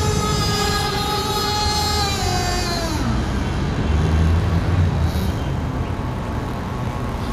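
Radio-controlled model speed boat's motor whining at high speed, the whine gliding down in pitch about two to three seconds in and then fading. A low rumble follows near the middle.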